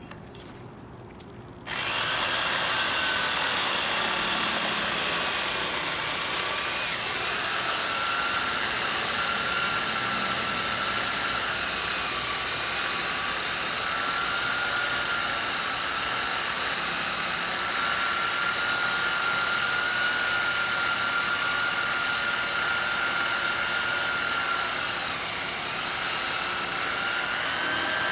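Virginia Abrasives VA CD3 three-speed electric handheld core drill starting up about two seconds in, then running steadily in third speed as the water-fed core bit cuts into a stone block. Its high whine wavers slightly in pitch.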